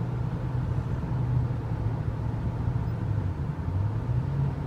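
Steady low drone of a car's engine and tyres on the road, heard from inside the cabin while driving through a road tunnel.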